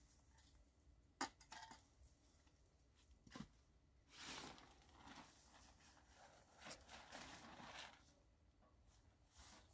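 Faint rustling and flapping of a tarp tent's fabric as its front panel is pulled open and folded back, in two main stretches, with a sharp click and a soft knock before them.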